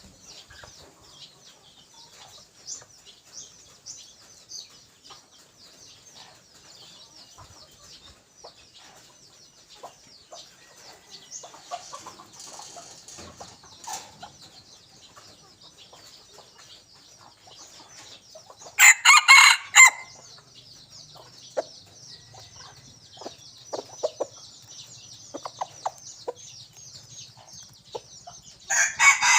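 Junglefowl rooster crowing twice, once about two-thirds of the way through and again at the end, each crow short and loud, over a steady high-pitched chirring.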